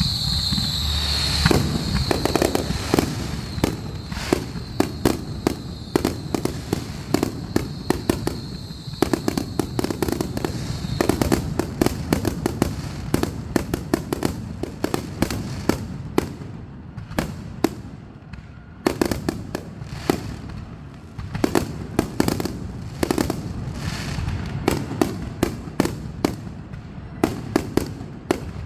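Fireworks going off in rapid, irregular pops and crackles, many per second, like firecracker strings. A steady high tone runs under the pops for roughly the first ten seconds.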